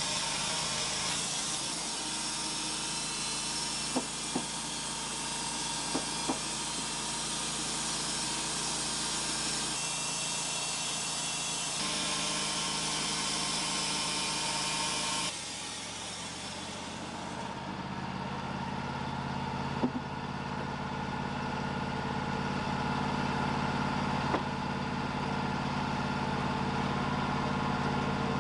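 Wood-Mizer portable band sawmill running: the band blade cutting cedar makes a steady high hiss over the engine. About halfway through the hiss stops abruptly and the engine runs on steadily, with a few sharp clicks scattered through.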